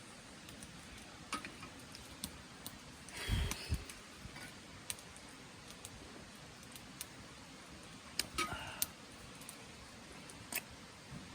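Scattered small clicks and ticks, with two short bouts of louder knocking and rustling, about three seconds in and again about eight seconds in.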